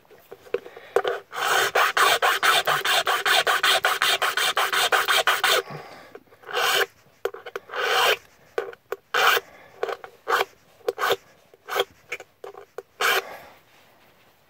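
Hand file scraping across a key to cut its bitting deeper by hand: a fast run of rapid strokes for about four seconds, then slower, separate strokes with pauses between them.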